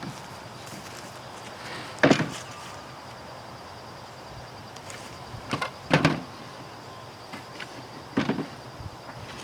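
Wooden boards knocking and clattering as they are handled and fitted together: a loud knock about two seconds in, a pair of knocks around six seconds, another near eight seconds, and light clicks between.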